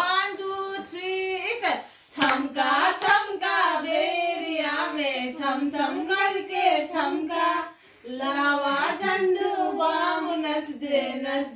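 A young girl singing a song unaccompanied, in phrases broken by short pauses about two seconds in and about eight seconds in.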